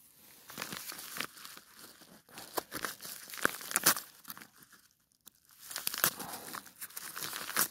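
Paper padded mailer envelope being torn open and crinkled by hand: irregular crackling rips of paper, with a short pause a little past the middle.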